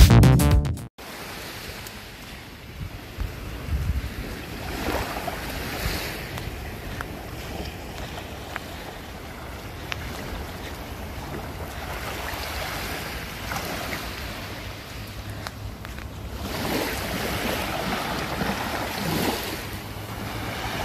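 An electronic music jingle cuts off about a second in, then small waves wash and lap on a sand-and-pebble shore under wind rumbling on the microphone, louder for a few seconds near the end.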